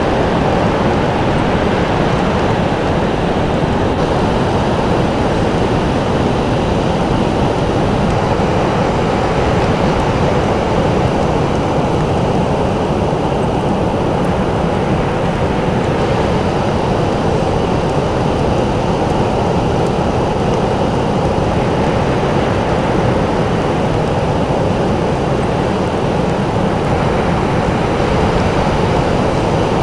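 Ocean surf breaking on the shore: a steady, low roar with no separate wave crashes standing out.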